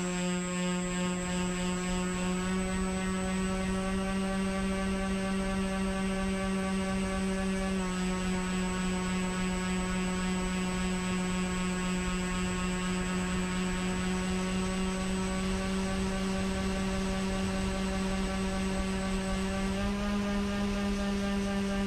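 Twin electric motors and propellers of a Skywalker foam RC plane running in flight, heard on board the airframe: a steady whine that dips slightly in pitch about eight seconds in and rises a little near the end.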